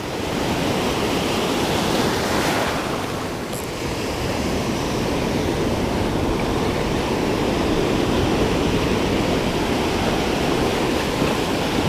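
Ocean surf breaking and washing up a sandy beach: a steady rush of white water that swells a little and never stops.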